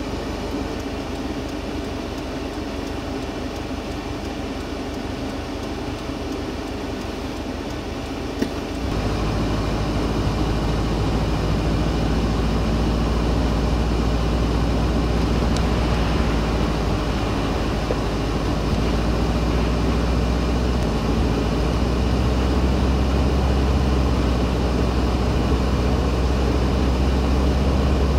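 Steady vehicle running noise. About eight and a half seconds in, a click is followed by a louder, steady low engine drone.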